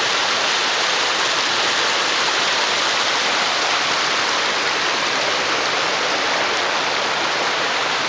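Steady rushing of a small waterfall pouring over rocks into a pool.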